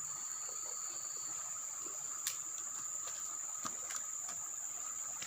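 Steady, high-pitched insect chorus holding one constant tone, with a few faint sharp clicks about two, three and a half and four seconds in.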